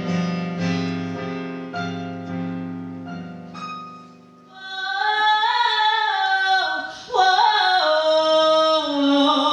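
Piano chords struck and left to ring and fade, then a woman's voice comes in about five seconds in, singing long held notes that slide in pitch.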